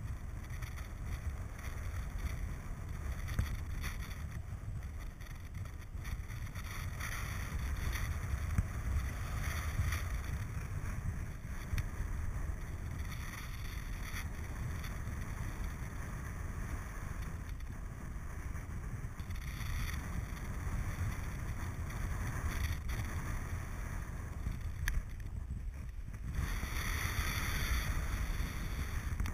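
Wind buffeting the microphone of a camera on a paraglider in flight: a steady, rough low rumble of airflow, with the hiss getting louder near the end.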